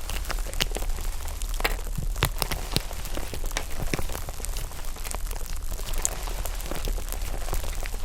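Foam slime being squished and pressed, giving a dense run of irregular small crackles and pops.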